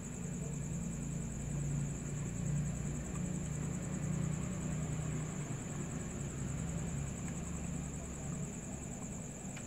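A steady low motor hum, a little louder from about a second in until past the middle, with a thin high whine held steady throughout.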